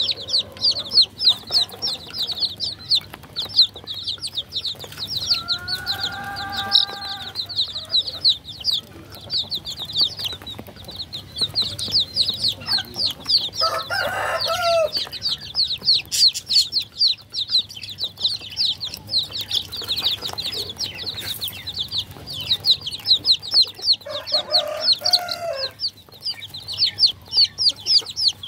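A brood of baby chicks peeping non-stop: a dense stream of short, high, downward-sliding chirps. Three lower calls break through it, about six, fourteen and twenty-five seconds in.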